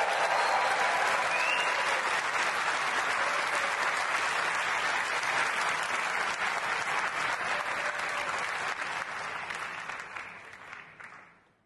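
Large arena audience applauding and cheering, with a brief rising whistle about a second and a half in. The applause fades out over the last second or two.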